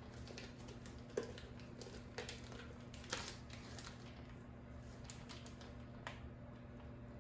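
Faint, scattered light clicks and rustles as a whole raw chicken is handled and lifted on a plastic cutting board, over a steady low hum.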